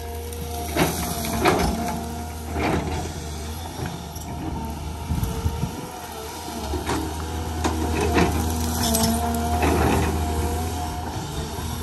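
Caterpillar 320 hydraulic excavator's diesel engine working under load with a low drone and a wavering whine, while its bucket tears through dry brush and small trees, with repeated sharp cracks and snaps of breaking wood.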